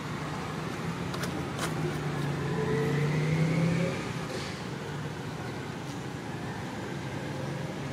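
A motor vehicle's engine running in the background, growing louder from about a second in with a slowly rising whine, then fading back at about four seconds. Two short clicks come near the start of it.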